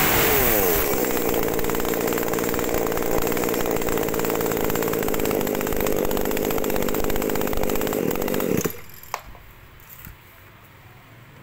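A Shingu 323 32cc two-stroke chainsaw running. After a last fall and rise in pitch it holds a steady speed, then cuts off abruptly near the end; a few light clicks follow.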